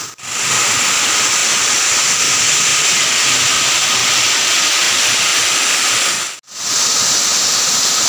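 Steady rushing of a waterfall and the stream below it, a loud even hiss of falling and tumbling water. It cuts out for a split second twice, just after the start and again about six and a half seconds in.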